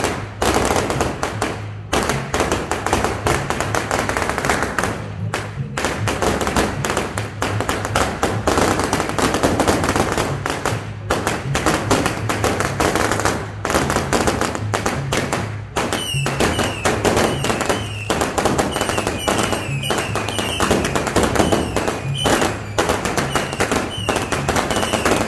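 Long strings of firecrackers crackling densely and without a break, with music playing underneath. In the last third, short high chirps repeat about once a second.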